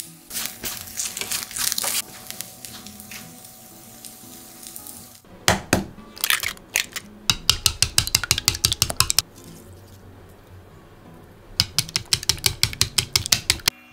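Chopsticks clattering in a frying pan as fried lotus root slices are mixed with salt, then eggs beaten with chopsticks in a clear measuring bowl: two fast runs of sharp clicking, about eight strokes a second, in the second half.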